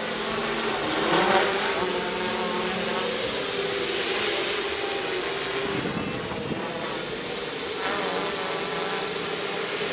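Quadcopter's four electric motors and propellers buzzing in flight, the pitch rising and falling as it manoeuvres, loudest about a second in.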